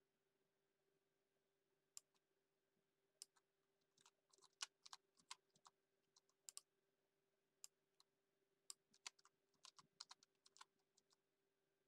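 Faint computer keyboard typing: keys clicking in short irregular bursts, over a low steady hum.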